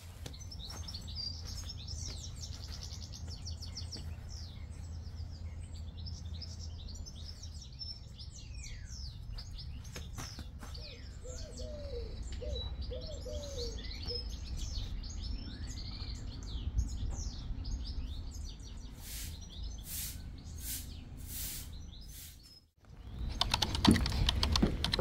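Small birds chirping and singing, many short overlapping calls and trills, over a steady low background hum; a few lower calls come in the middle and a short run of sharp clicks near the end. The sound cuts out briefly near the end and a louder, different noise follows.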